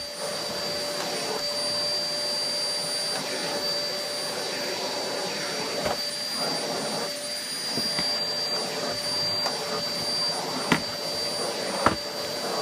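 Vacuum cleaner running steadily, with a constant motor whine over the rush of air, and a few sharp knocks as it works the floor, the last near the end.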